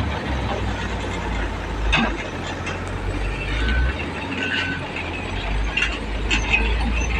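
Truck engine running with a steady low rumble, and scattered knocks and rattles over it.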